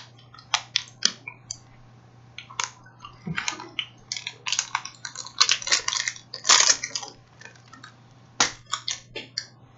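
Plastic Kit Kat wrapper crinkling and crackling as it is handled and torn open, in irregular bursts that are busiest from about four to seven seconds in.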